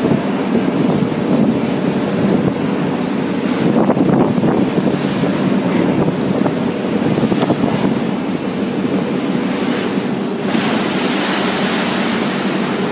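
Steady, loud drone of fishing-trawler machinery mixed with the rush of the sea and wind buffeting the microphone. A brighter hiss of churning water comes in about ten seconds in.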